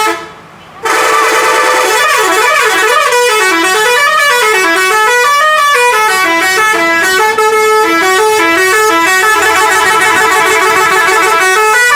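Telolet multi-tone horn on a Scorpion Holidays bus playing a long melody: loud notes that step quickly up and down in a tune. It comes after a short first note and a brief pause at the start.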